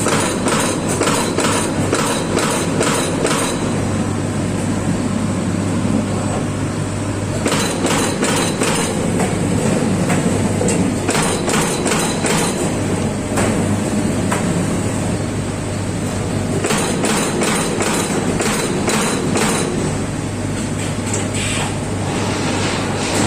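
Amada Pega 357 CNC turret punch press punching sheet metal: runs of sharp punch strikes, a few a second, in bursts with short pauses between as the sheet repositions, over the steady hum of the machine.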